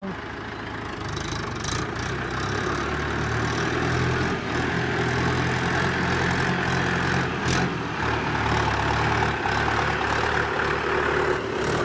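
Mahindra tractor's diesel engine running steadily as the tractor drives slowly along.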